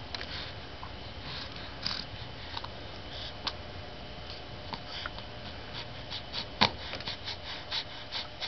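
Scattered soft clicks and rustles, with one sharper click about two-thirds of the way through; no cooing or voice.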